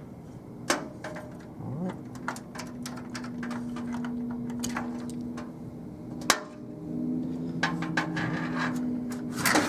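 Clicks and knocks of cable plugs being pulled off a hard disk drive and the drive being handled out of a PC case, with one sharp knock about six seconds in. A steady low hum sounds for two stretches, from about two and a half to five and a half seconds and again from about seven to nine seconds.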